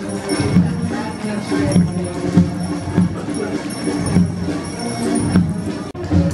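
Parade band music with a steady march beat of about one and a half beats a second, with bells jingling over it. The sound cuts out for an instant near the end.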